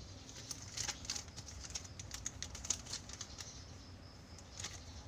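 Hands handling a toy's box contents, a paper catalog and sticker sheet, making scattered soft clicks and light rustles.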